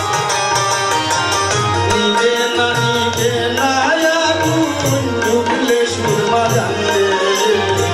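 Live Bengali folk song: a male singer over hand-drum strokes, harmonium and keyboard.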